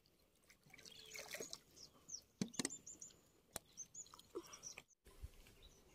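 Faint river ambience: small water splashes and clicks from wading in the river, with a few short, high bird chirps.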